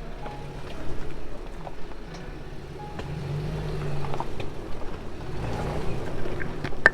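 Toyota Tacoma pickup's engine running as it drives, a steady low rumble with scattered knocks and rattles and a sharp click near the end.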